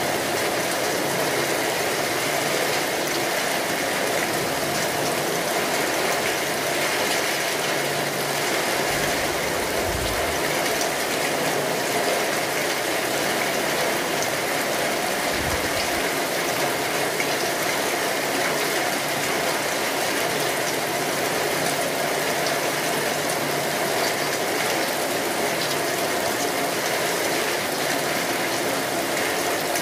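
Steady heavy rainfall: a dense, even hiss of falling rain that holds at one level, with two brief low thumps about ten and fifteen seconds in.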